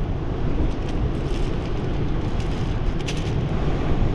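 Strong wind buffeting the microphone, a steady low rumble, with a few faint short clicks over it.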